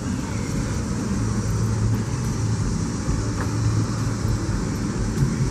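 Steady outdoor background rumble with a low hum running under it.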